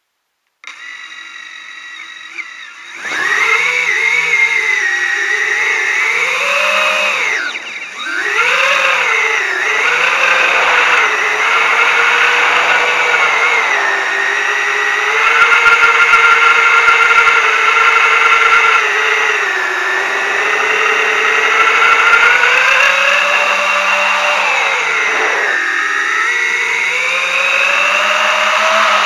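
FPV drone's brushless motors and propellers: a faint steady whine while armed on the ground, then a loud whine from takeoff about three seconds in. The pitch rises and falls with the throttle and dips sharply twice, near the quarter mark and near the end.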